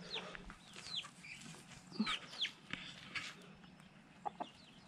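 Young backyard chickens peeping: a handful of short, high chirps that fall in pitch, about one a second, with a brief knock near the end.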